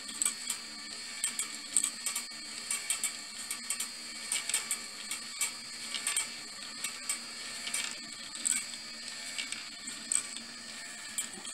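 Small electric motor whirring steadily as it drives a marble machine's wooden stair-step lift, with frequent, irregular sharp clicks of steel balls tapping up the steps and rolling and dropping along brass wire rails into a wooden bowl.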